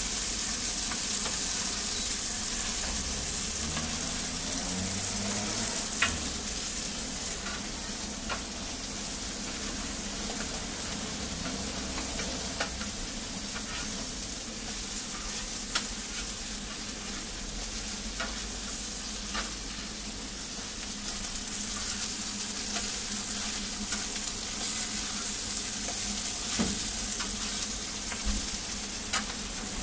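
Egg pancakes with scallions sizzling steadily in oil on a flat-top steel griddle. A metal scraper now and then clicks and scrapes against the plate as the pancakes are turned.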